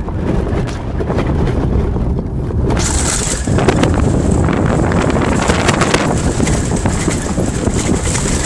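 Wind buffeting the microphone over the low rumble of a moving off-road vehicle. From about three seconds in the noise turns brighter and harsher, with rubbing and crackling as the microphone is covered by hand to keep the wind off.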